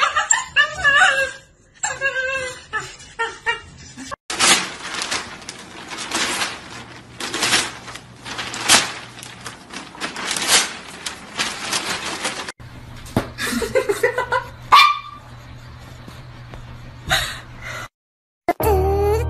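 Dog whimpering and yipping in short high cries, then a long stretch of newspaper crackling and rustling, then a brief dog whine.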